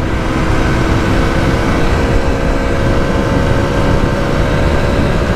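Mondial SMX 125i supermoto's 125 cc single-cylinder engine running steadily at cruising speed, its even engine tone heard under heavy wind rumble on a helmet-mounted microphone.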